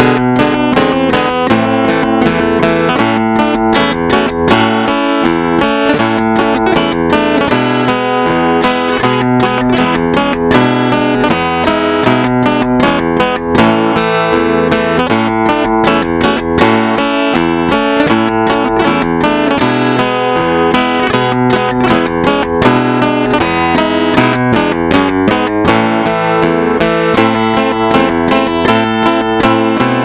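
Guitar music plucked by a solenoid-driven automatic guitar-playing machine: a continuous melody of plucked notes over a rhythmic line of low bass notes.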